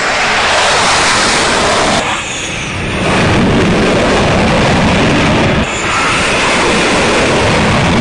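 F/A-18 jet engines running at high power during carrier touch-and-go passes: a loud, continuous roar with a faint high turbine whine. The sound changes abruptly twice, about two seconds in and near the six-second mark.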